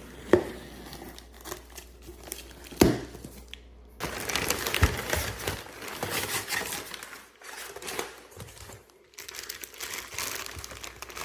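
A mystery box being opened: two sharp knocks in the first three seconds, then long stretches of crinkling and tearing of its packaging.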